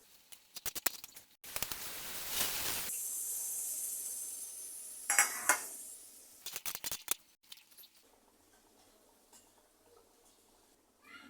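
Metal utensils clinking against a cooking pan, then a sudden burst of sizzling as food goes into hot oil. The sizzle fades over a few seconds, and a few more clinks follow.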